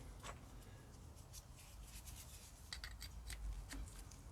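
Faint, scattered light metallic clicks and rubbing as the brake pad retaining pin is pushed back through a motorcycle's rear brake caliper and pads, with a small cluster of clicks nearly three seconds in.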